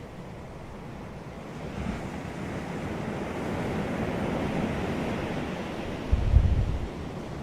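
Ocean surf on a beach: a wave builds and washes in with a steady hiss, then eases off. Near the end comes a brief low rumble, wind buffeting the microphone.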